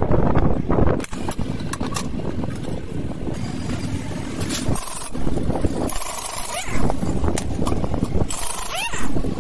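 Pneumatic impact wrench loosening a car's lug nuts: hissing, rattling bursts about six seconds in and again from about eight seconds, the second rising in pitch as the wrench spins up. Before that, clicks of hand tools working at the wheel hub, over a steady low rumble.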